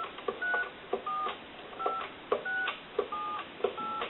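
Touch-tone (DTMF) keypad of a Conair SW2504 desk telephone dialing a number in tone mode. About seven short two-tone beeps come in quick succession, roughly one every two-thirds of a second, each with a click of the key.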